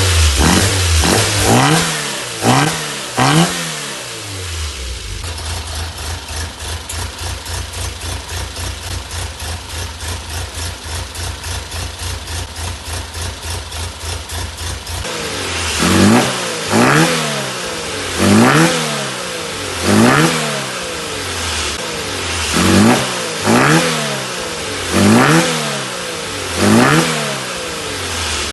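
Modified SEAT 600's rear-mounted four-cylinder engine being blipped on the throttle, each rev rising and falling quickly. In the middle it idles with a steady pulsing beat, then the throttle blips start again about every second and a half.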